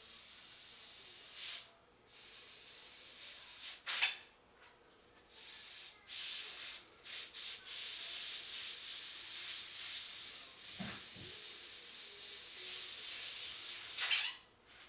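Airbrush spraying paint onto a T-shirt: a high hiss of air that starts and stops in short spurts as the trigger is worked, then runs steadily for about six seconds before cutting off near the end.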